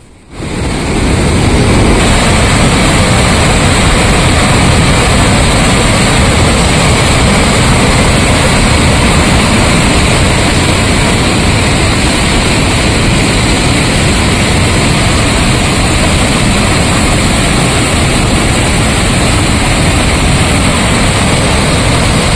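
Floodwater rushing out through the raised spillway gates of a dam in a loud, steady, unbroken roar of white water, coming in abruptly just after the start.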